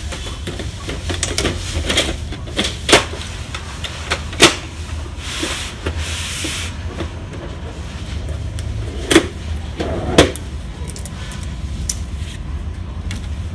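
Plastic handling sounds from an HP LaserJet M15w laser printer as its toner cartridge is seated, its cover shut and the body turned around. Four sharp clicks and knocks stand out, two of them a second and a half apart in the first half and two a second apart in the second half, with a stretch of plastic rubbing and sliding between them.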